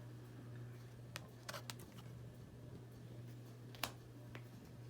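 Trading cards being handled: a few soft, short clicks and taps, three close together about a second in and two more near the end, over a steady low hum.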